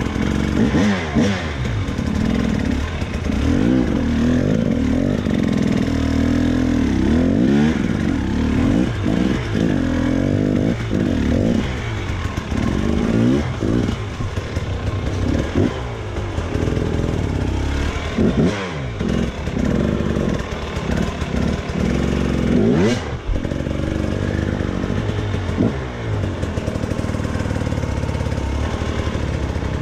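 Two-stroke Husqvarna enduro motorcycle engine being ridden hard over rocks, revved in many short throttle blips that rise and fall in pitch.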